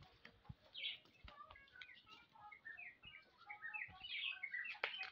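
Small birds chirping in quick, short notes, busier and louder in the second half, with a few faint low thumps.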